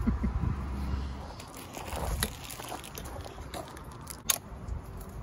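Gloved hands working rubber fuel hoses onto a small plastic inline fuel filter on an outboard engine: faint crackling and small handling clicks, with one sharper click about four seconds in.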